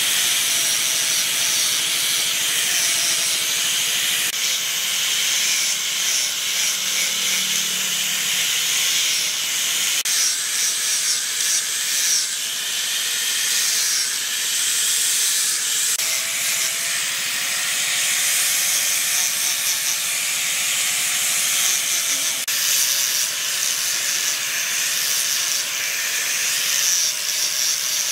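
Electric angle grinder with a sanding disc sanding carved wood: a steady, high abrasive hiss over the motor's whine, which wavers slightly in pitch as the disc is pressed against the workpiece.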